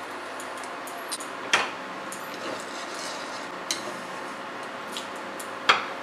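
A spoon stirring salt into a thin curry gravy in a non-stick kadai, with a few sharp clinks against the pan, the loudest about one and a half seconds in and near the end, over a steady hiss.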